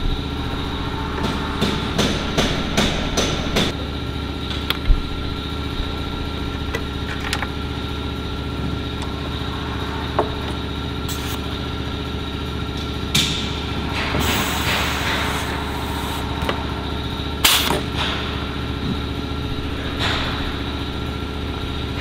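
Rivet squeezer setting rivets in an aircraft wingtip rib: a series of sharp clicks and knocks, several close together in the first few seconds, then single ones spaced a few seconds apart. A steady mechanical hum runs underneath.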